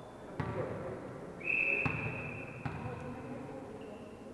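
A referee's whistle blows one steady high tone about a second and a half in, over a few separate hollow thuds of a volleyball bouncing on the hall floor, all echoing in the sports hall.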